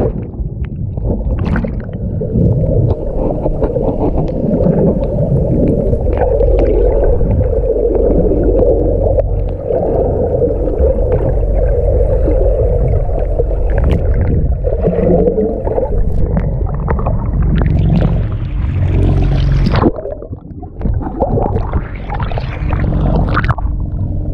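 Muffled underwater sound picked up by a submerged action camera: a steady low rumble with bubbling and gurgling. Near the end the camera comes back up to the waterline and water splashes and sloshes against it.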